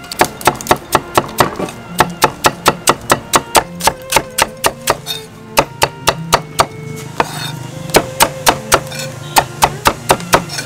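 Cleaver slicing through a raw carrot onto a chopping board: quick, even chops about four to five a second, with two short pauses, over soft background music.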